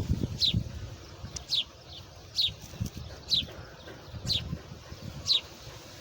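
A small songbird repeats a short, high, falling chirp about once a second, over low rustling and a few soft thumps.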